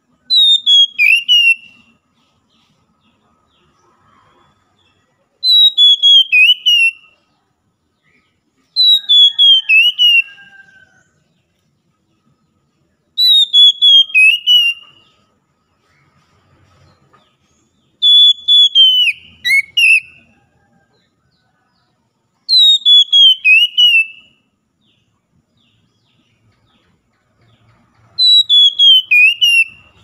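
Oriental magpie-robin singing: a clear whistled phrase of several quick notes that falls in pitch, repeated seven times at intervals of about four to five seconds.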